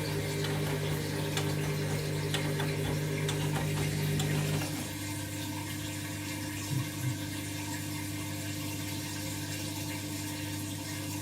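Candy washing machine at the start of its final spin with a load of bedding: a steady hum of the drain pump with water draining, which drops in level and changes tone about five seconds in. Two faint knocks come a couple of seconds later.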